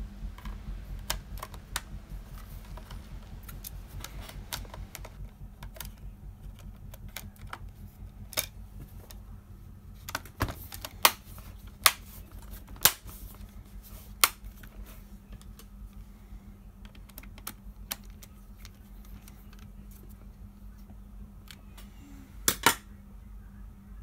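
Laptop hard-drive access cover being pressed back into place on the underside of a Lenovo IdeaPad 510: scattered light plastic clicks and taps from the cover's clips and fingers on the case. There are a few sharper clicks in the middle and a quick double click near the end.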